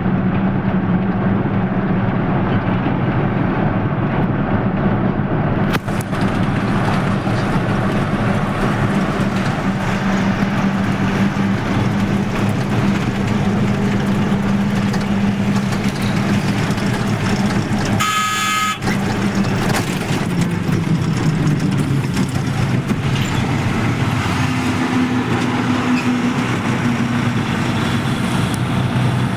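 Road vehicle running with steady engine drone and road noise. A horn sounds once briefly about eighteen seconds in.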